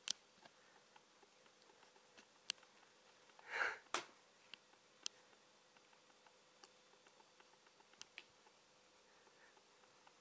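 Near silence of a quiet small room with a faint steady hum, broken by a few sharp little clicks and one short breathy puff about three and a half seconds in.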